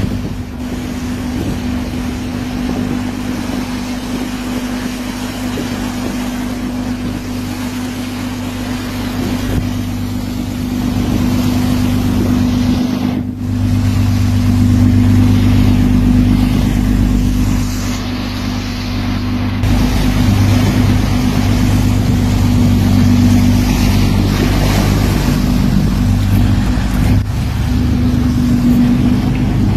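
Riverboat engine running with a steady low drone and hum, heard from on board over the hiss of rushing water and wind. It gets a little louder about a third of the way in.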